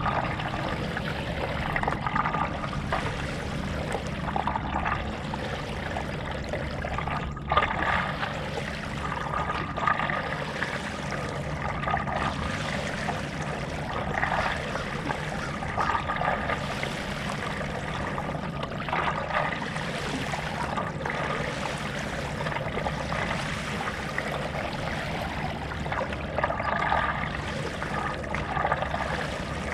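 Stand-up paddle strokes in lake water: the paddle dips and pulls with a splash and trickle about every two seconds, over a steady low rush of water. There is one sharp knock about seven seconds in.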